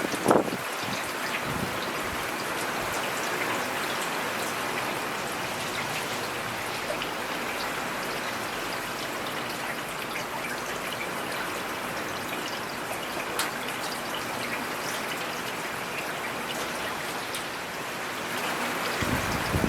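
Steady rain falling, an even hiss with scattered individual drops ticking. There is a brief louder surge right at the start and another just before the end.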